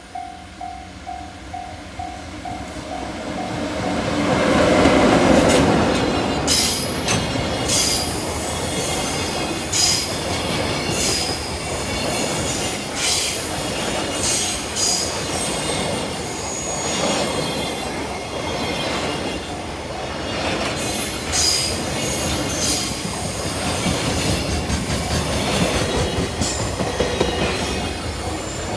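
A level-crossing warning bell rings in even pulses of two to three a second. About four seconds in, a JR Freight EF66 electric locomotive passes loudly. It is followed by a long string of freight wagons rumbling by, their wheels clicking and squealing.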